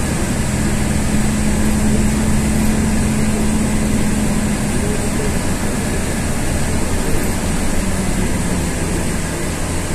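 Inside a LiAZ-5292 city bus on the move: a steady drone of the engine and drivetrain with road noise, and a low hum that holds for the first few seconds and then fades.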